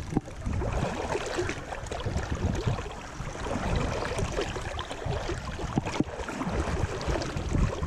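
Footsteps on soft riverbank ground, with irregular thumps, rustling and a couple of sharp knocks, over steady noise of flowing river water and wind on the microphone.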